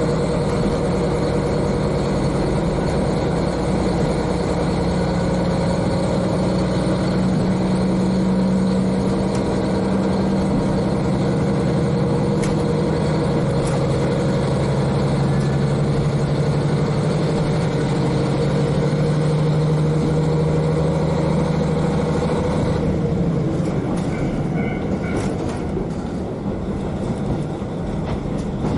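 Diesel railcar's N-DMF13HZI diesel engine running steadily under power, heard from the floor right above it, its note shifting in pitch about a third of the way in. Near the end the engine's note fades, leaving the wheels' running noise on the rails.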